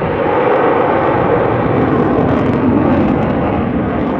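Fighter jet flying a display pass: loud, steady jet engine noise.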